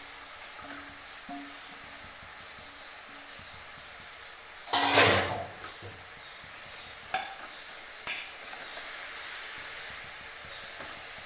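Grated carrots sizzling in ghee in a pressure cooker as they are stirred with a spoon, a steady hiss. About five seconds in there is one loud scrape or clatter, with a couple of light knocks later.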